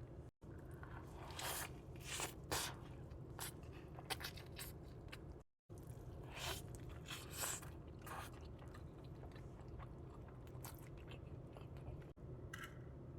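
Close-miked chewing and crunching of Whataburger fast food, with irregular crisp bites and wet mouth sounds. The sound cuts out to silence twice for a moment.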